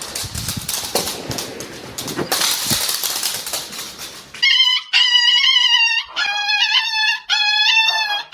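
Rustling and scuffling for the first half. Then a dog gives long, high-pitched wails, each about a second long with short breaks between them, the cry of a scared dog.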